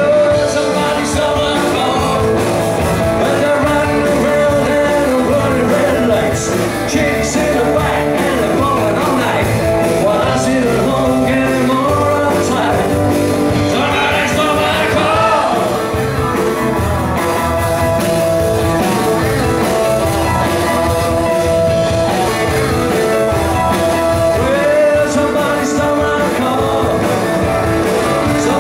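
Live rock band playing a song: electric guitar, bass guitar, drums and a Nord Electro keyboard, with a male lead vocal.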